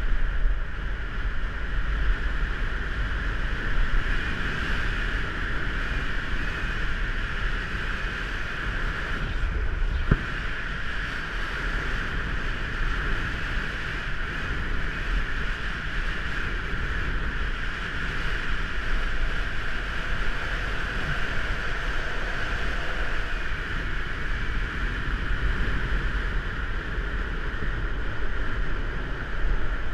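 Urethane longboard wheels rolling fast over asphalt on a downhill run, a steady hissing roar with wind buffeting the camera microphone. There is a single sharp knock about ten seconds in.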